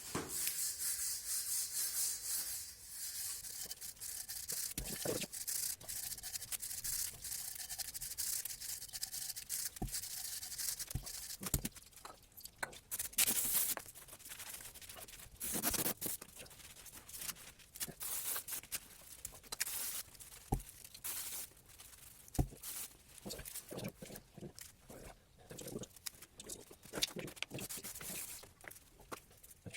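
Scrubbing and rubbing on rear drum-brake parts during cleaning and greasing, a hissy scrub for the first few seconds, then scattered sharp clicks and knocks of metal parts and tools.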